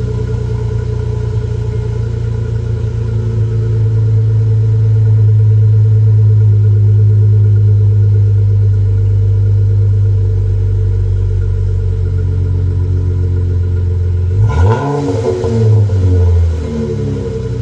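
2014 Dodge Charger's 3.6-litre V6 running through aftermarket mufflers and dual exhaust tips, idling steadily, then revved in a few quick blips near the end.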